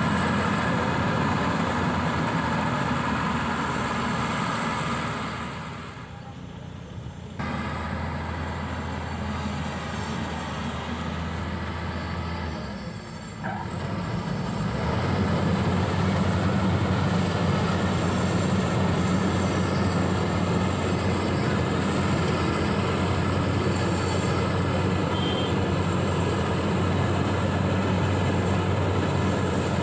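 Combine harvester running at work, a steady mechanical drone with a low hum. It drops quieter for a couple of seconds about six seconds in and again around thirteen seconds, then runs louder from about fifteen seconds on.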